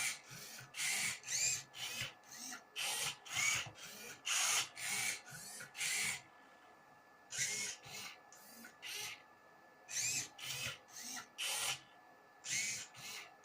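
Motor-driven Rubik's cube solver robot turning the cube's faces move after move, each turn a short whir that rises and falls in pitch, with a pause of about a second midway and another near the end.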